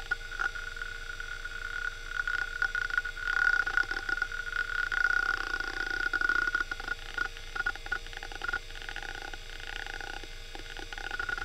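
Western Digital Caviar 21200 hard drive spinning with a steady high whine while its heads seek in rapid, irregular clicking bursts as ScanDisk reads the disk. The seeking is busiest in the middle and thins out near the end.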